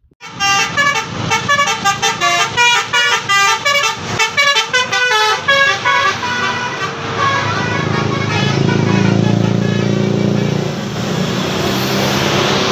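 Bus 'telolet' horn, a multi-tone musical horn, playing a fast melody of short notes for about six seconds. After that the bus engine runs with road noise.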